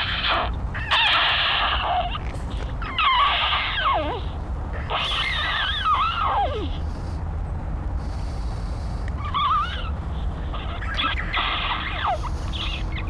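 A series of short, squeaky squeals, about six in all, each with a wavering, sliding pitch and some dropping steeply, over a steady low hum.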